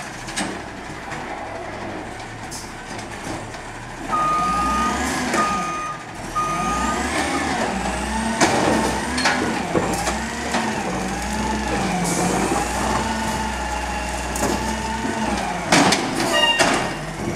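Automated side-loader garbage truck running at the curb while its arm lifts and empties a cart: a whine rising and falling over the diesel engine, with three long beeps about four seconds in and a few knocks near the end.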